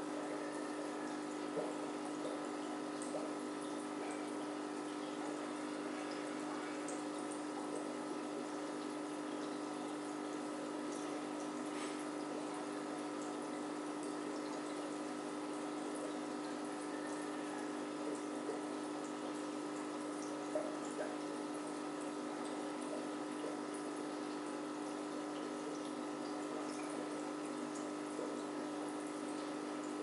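Aquarium filtration running: a steady pump hum over continuous trickling, bubbling water, with a few faint ticks.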